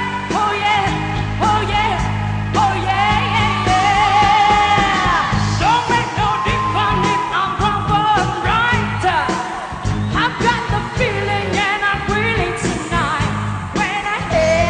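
A female pop singer sings a powerful live vocal over a band, with wavering vibrato on her held notes. About two and a half seconds in, the bass and drums drop away, leaving the voice over lighter accompaniment.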